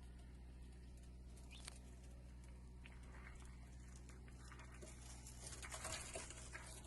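Faint steady low hum with a few light taps scattered through, and a short rustling patch with small chirp-like tones about six seconds in.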